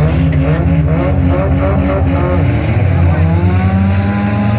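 Several demolition derby cars' engines running and revving in the arena, their overlapping engine notes rising and falling.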